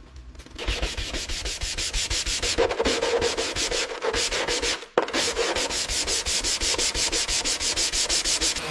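Sanding: fast back-and-forth rubbing strokes, about six a second, with a short break and a sharp click about five seconds in.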